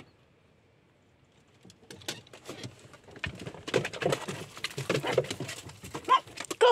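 Several dogs' paws and claws clattering and scrabbling as they jump down out of a camper van doorway and onto gravel, starting about two seconds in and growing busier after that.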